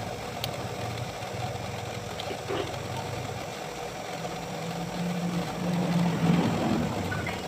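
An engine idling: a low steady hum that grows a little louder about five seconds in.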